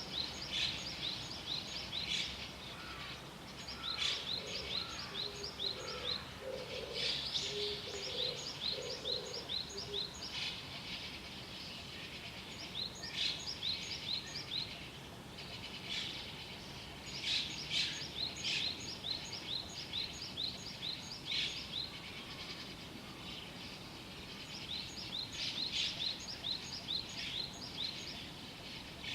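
Small birds twittering in the morning: phrases of rapid, high chirps repeated several times a second, coming and going over a faint steady background hiss, with a few lower notes from another bird briefly in the first third.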